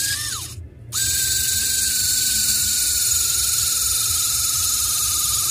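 Homemade cordless mini drill's N-20 gear motor whining. It runs briefly and stops after about half a second, then starts again about a second in and runs steadily as the bit drills into a PVC sheet, its pitch slowly falling under the load.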